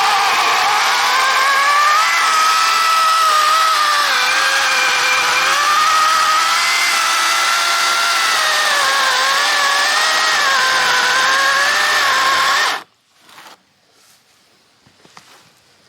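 Wild Badger 40-volt battery chainsaw running with a steady motor-and-chain whine whose pitch wavers up and down as it cuts. It stops abruptly about thirteen seconds in, leaving only faint clicks.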